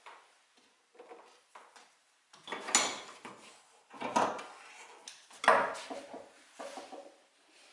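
Clattering and scraping of hard objects being handled, wood and metal knocking together, in three louder bouts about a second and a half apart among lighter knocks.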